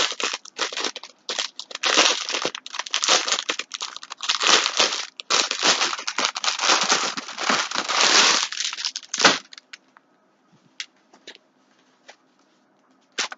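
Rustling and crinkling of a cotton polo T-shirt being handled and pulled on over the clothes, stopping about nine seconds in, followed by a few faint clicks and one sharper one near the end.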